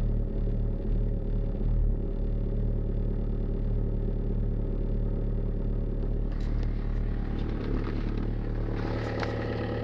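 VW Passat's 1.9 TDI (AFN) four-cylinder turbodiesel idling steadily at about 1000 rpm while still cold after a start at −18 °C, heard from inside the cabin. In the last few seconds, light clicks and rattles come in over the idle.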